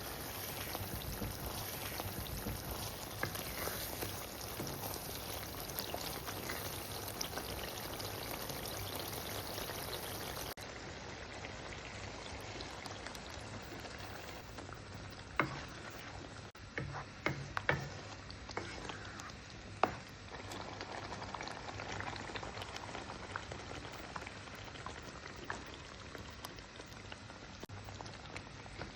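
Food sizzling steadily in a frying pan, with a few sharp clicks and knocks about halfway through.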